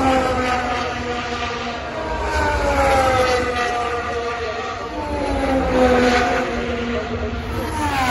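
Formula 1 cars' turbocharged V6 hybrid engines passing one after another, each engine note falling in pitch as it goes by: one at the start, a second with a long downward sweep through the middle, and another that rushes past near the end with a quick sharp drop.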